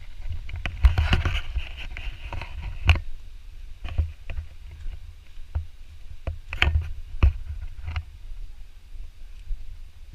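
Walking and camera-handling noise on the microphone: a low rumble with irregular thumps and knocks, about one a second.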